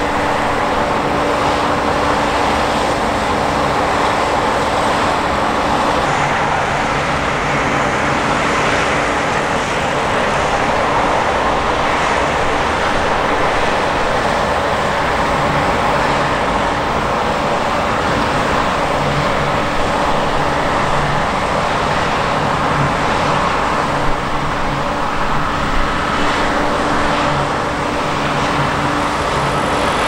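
New Holland CR-series combine harvesters working through a rapeseed crop: engines and threshing machinery running steadily, a continuous mechanical drone with a constant hum.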